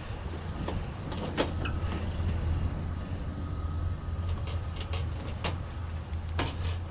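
A vehicle engine running steadily at idle, a low hum, with a few sharp clicks and knocks over it.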